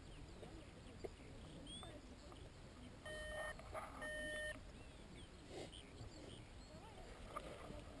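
Wind rumbling on the microphone, with two identical electronic beeps about three and four seconds in, each a steady tone about half a second long.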